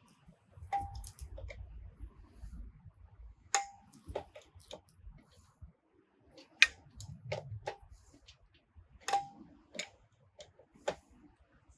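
Irregular metallic clicks and clinks as the log splitter's hydraulic pipe fittings are handled and screwed back onto the valve. A few of the knocks ring briefly.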